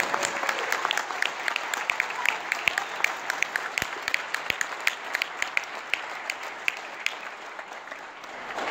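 Audience applauding, with separate sharp hand claps standing out; the clapping is heaviest at first and gradually thins out.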